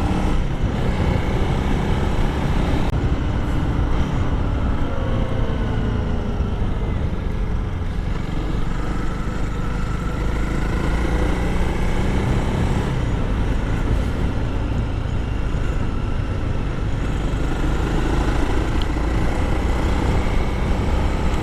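Honda CRF300L single-cylinder engine running while being ridden, its pitch slowly rising and falling as the revs change, over a steady low rumble.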